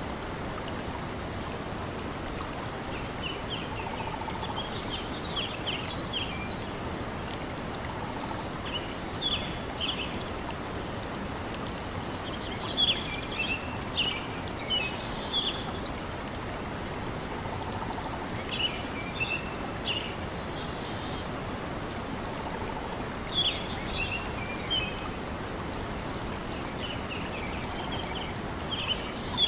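Steady rush of a flowing stream, with small birds chirping in short clusters every few seconds over it.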